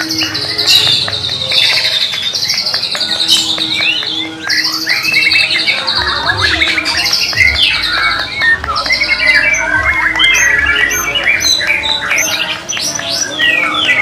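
White-rumped shamas (murai batu) singing hard in their cages: a dense, unbroken stream of rapid whistles, trills and harsh notes.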